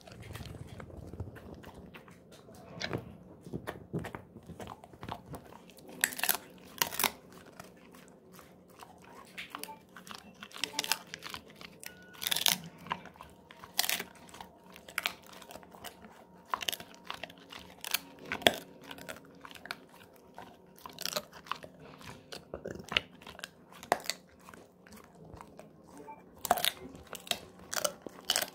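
A golden retriever chewing a dried pig ear, with irregular crunches and sharp cracks as its teeth break the hard chew.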